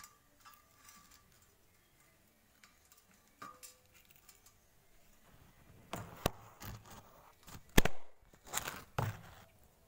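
Handling noise at a frying pan: scattered light clicks and taps, then a cluster of knocks and one loud sharp knock about eight seconds in, followed by rubbing as the phone is moved.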